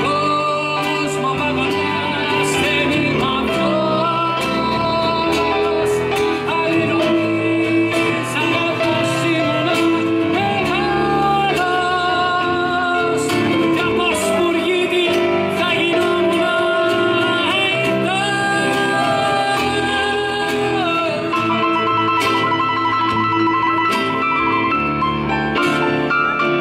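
Live song: a male singer's voice over strummed acoustic guitar, with long held notes that waver in pitch.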